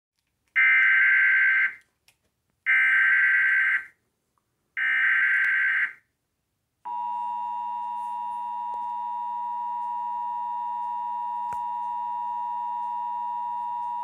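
Emergency Alert System signal from a television: three short bursts of the SAME digital header data, each about a second long with a gap between them, then, about seven seconds in, the steady two-tone EAS attention signal (853 and 960 Hz) that announces an alert, here a severe thunderstorm warning.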